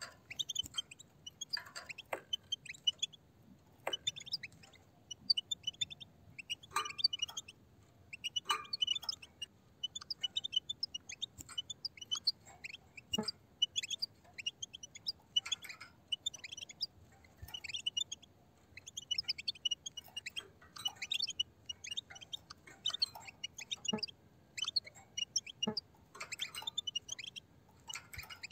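A flock of European goldfinches twittering: rapid, high chirping chatter in bursts every second or two, with a few sharp clicks among it.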